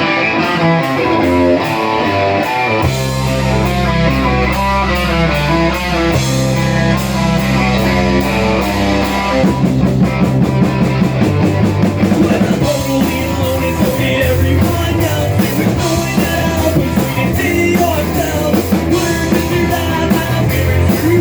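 Rock band playing the instrumental opening of a song live, with guitar and drum kit. A heavier, low part joins about three seconds in.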